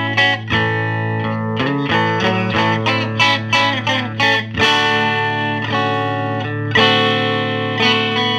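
Fender Stratocaster played straight into a 1968 Fender Princeton tube amp, with volume, treble and bass on 10, through its original Oxford speaker. Loose picked notes and chords over a sustained low note.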